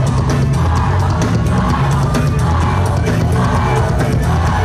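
Loud dance music with a heavy bass line and a steady drum beat.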